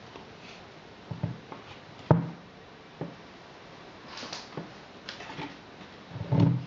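Handling noise from a wooden root lamp being turned and set down by hand: scattered knocks and brief rustles, the loudest knock about two seconds in and a heavier thump near the end.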